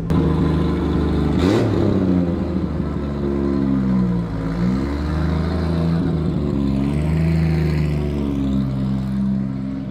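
Nissan Skyline R32's engine running and being revved, its pitch rising and falling several times, inside a concrete parking garage.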